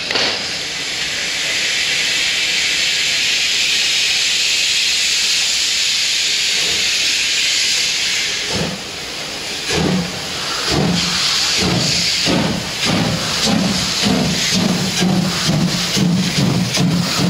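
TY42-107 2-10-0 steam locomotive starting away. A loud, steady hiss of steam lasts for about eight seconds, then exhaust chuffs begin, slow at first and quickening as it gathers speed.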